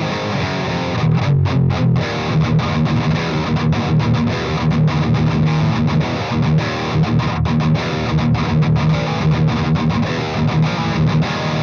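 Electric guitar tuned to E flat, played through the overdrive channel of a Splawn Quickrod 100 valve amp set to first gear, its lowest gain, and heard from a miked 1x12 cabinet with Celestion Greenback speakers. It is a distorted riff broken by frequent short stops.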